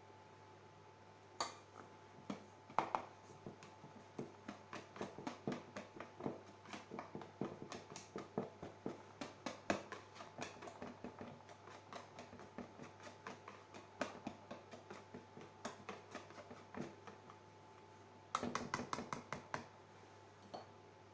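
A spatula or utensil knocking and scraping against a mixing bowl, faint soft clicks about twice a second, as meringue is folded into the cake batter. A quick flurry of clicks comes near the end.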